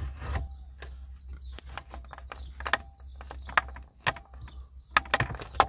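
Hard plastic interior trim panel of a Ford Explorer being handled and worked by hand: an irregular string of sharp plastic clicks and knocks, the loudest just after five seconds in, with faint bird chirps behind.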